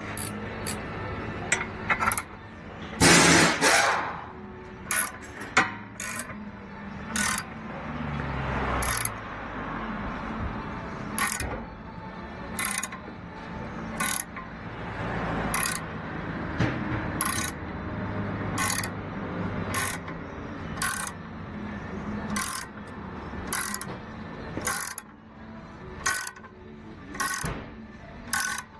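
Hand ratchet wrench being worked in short strokes, a burst of ratchet clicks about every second, with a few louder metallic knocks in the first few seconds.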